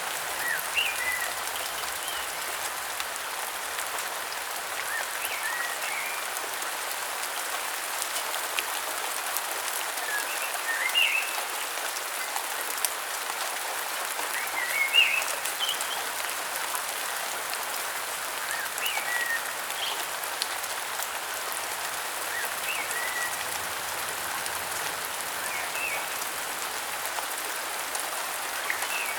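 Steady rain hiss, with short high bird chirps coming back every four seconds or so.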